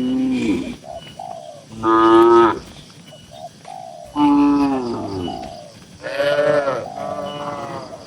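Cattle mooing in a pen: four loud moos in turn, a few seconds apart, each a long pitched call.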